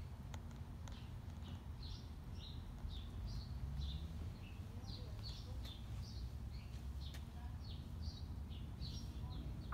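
Small birds chirping, a steady run of short high chirps about two or three a second, over a low steady outdoor rumble.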